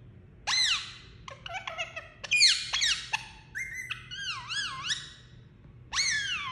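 Indian ringneck parakeet calling: a string of pitched squawks and whistles that bend up and down in pitch, several short ones in quick succession and one that wavers in the middle, with a loud call near the end.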